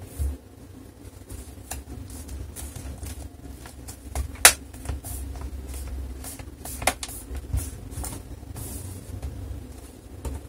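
Scattered sharp plastic clicks and knocks from handling an HP Pavilion 15 laptop as its lid is opened and its bottom cover's clips are pressed into place around the edges. The loudest click comes about four and a half seconds in.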